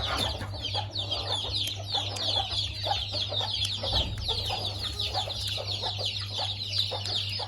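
Chickens feeding: many chicks peeping without pause in short, high, falling peeps, with lower clucks scattered among them.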